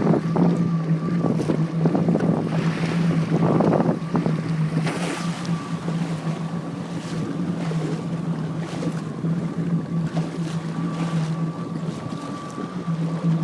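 Jet ski engine running with a steady low hum and a fainter higher whine, water splashing in the first few seconds and wind buffeting the microphone. The engine note drops back for several seconds in the second half, then picks up again near the end.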